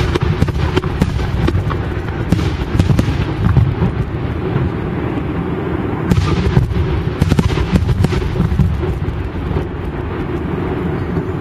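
Aerial fireworks bursting in quick succession: a continuous low rumble of booms with many sharp cracks on top, thickest a couple of seconds in and again about six seconds in.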